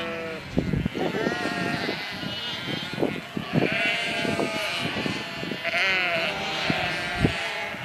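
Sheep bleating, several short high calls, over many short crunching and tearing sounds of a flock cropping grass.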